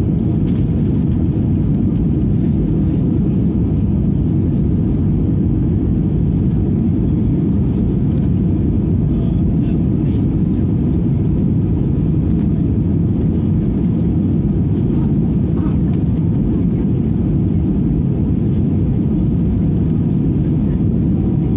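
Airliner cabin noise in flight: the steady, low rumble of the engines and the airflow past the fuselage, heard from inside the cabin.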